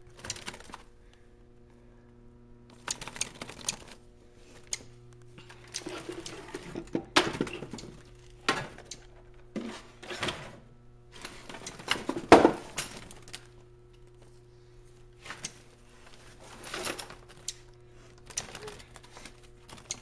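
Rustling and clattering of a towel and a handheld phone as a small bird is grabbed at a window ledge, in irregular bursts every second or two, with the sharpest knock about two-thirds of the way in, over a faint steady hum.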